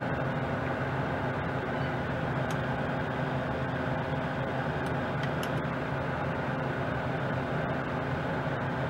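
Steady machine hum with several steady low tones, from an appliance running nearby, with a few faint ticks as the impulse sealer's arm is held down on a mylar bag.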